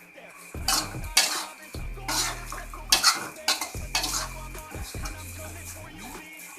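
Metal utensil clanking and scraping against a pan at irregular intervals while snails are stir-fried in soy sauce, with a light sizzle underneath.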